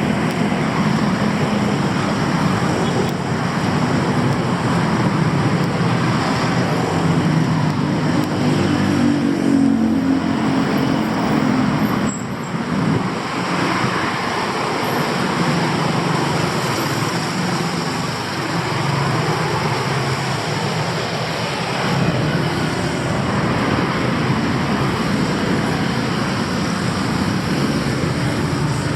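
Road traffic on a busy city street: a steady wash of vehicle noise, with the low hum of engines passing close by.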